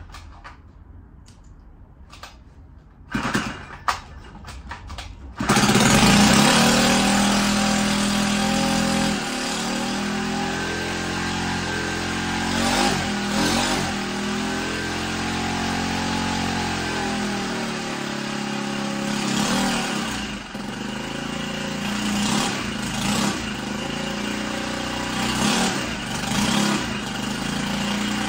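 Straight-piped 50cc four-stroke engine running on hydrogen gas: a few short clatters, then it starts about five seconds in and runs loudly, its revs rising and falling as the throttle is worked by hand.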